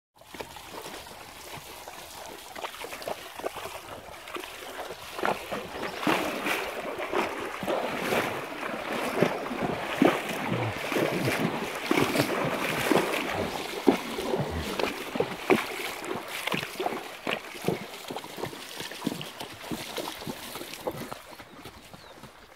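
A horse wading through a shallow river, its legs splashing through the water with each stride. The splashing grows louder a few seconds in, is loudest through the middle, then eases off near the end.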